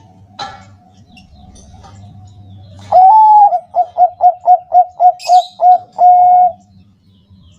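Zebra dove (Bangkok perkutut) singing. It gives one long coo, then a quick run of about ten short staccato coos, and ends on a longer held coo.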